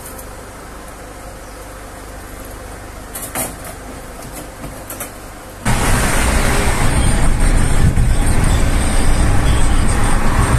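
A few light clicks and knocks over quiet outdoor ambience, then, after an abrupt jump just before the halfway point, loud steady road and engine noise heard from inside a car cabin at highway speed, with a thin high whistle over it.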